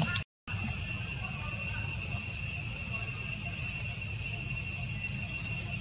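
Steady insect chorus: several high-pitched buzzing tones held constant, over a low rumble. The sound drops out completely for a moment shortly after the start.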